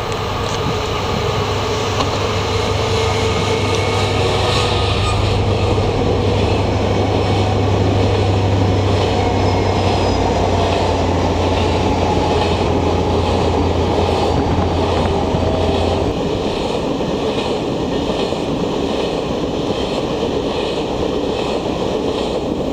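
Train passing: a steady rolling rumble of wagons with regular clickety-clack of wheels over rail joints. A low hum drops out about two-thirds of the way through.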